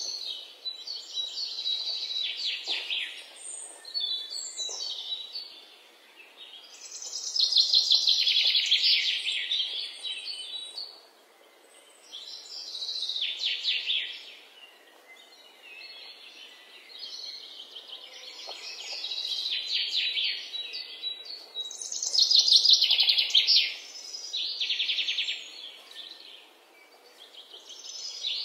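Birdsong: repeated high, rapid trilling phrases, each lasting a couple of seconds, returning every few seconds with short quieter gaps between them.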